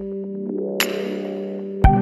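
Electronic music: held synthesizer chords, with a cymbal-like hit a little under a second in and a bass-drum thump near the end.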